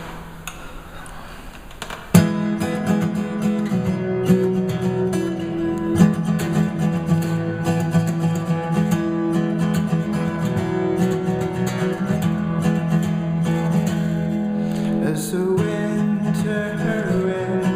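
Music led by strummed acoustic guitar, coming in sharply about two seconds in after a quieter stretch.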